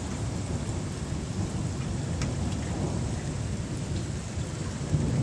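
Steady rain falling with thunder rumbling low underneath; the rumble swells near the end.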